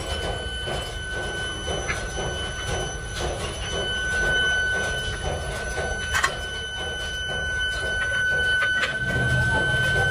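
Foundry pit furnace running with a steady rush and a high machine whine, while scrap cast-iron pieces are tossed into it with a few sharp clanks, the sharpest about six seconds in. The low rush grows louder near the end as the fire is stoked.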